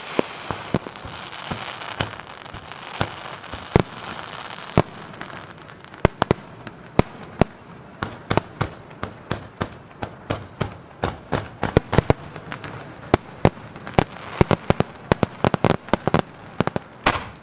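Aerial fireworks shells bursting with sharp bangs, about one a second at first, then coming faster, several a second, in the second half, over a steady hiss.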